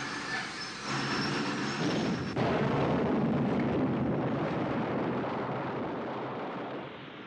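A train rolling through a tunnel with a few steady high tones, then about two and a half seconds in a sudden, heavy explosion whose rumble stays loud for several seconds and slowly dies away.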